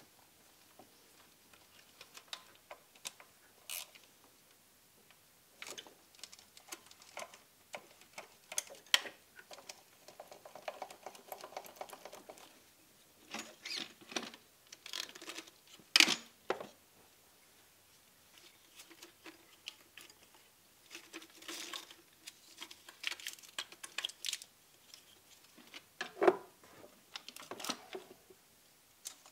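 Scattered clicks, taps and light clatter of hand tools and metal engine parts as the lower intake plenum is unbolted and worked loose, with a louder knock about halfway through.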